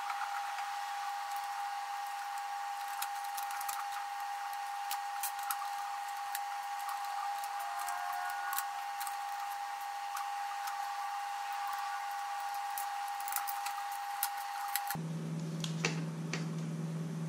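Light clicks and taps of small tools and plastic parts being handled while a drone's top cover is unscrewed, over a steady high-pitched whine. About fifteen seconds in the whine stops abruptly and a lower steady hum takes its place, with the clicks going on.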